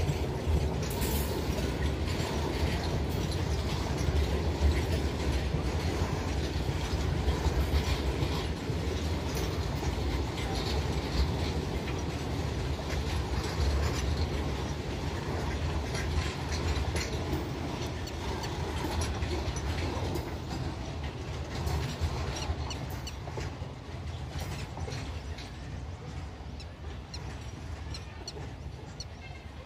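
Double-stack container wagons of a freight train rolling past, a steady low rumble with wheels clicking over rail joints. The sound fades over the last several seconds as the tail of the train moves away.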